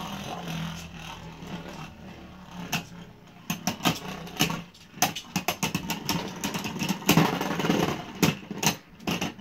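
Two Beyblade Burst spinning tops whirring in a plastic stadium, a steady hum at first. From about three and a half seconds in, rapid clicking and clacking as the tops strike each other and the stadium.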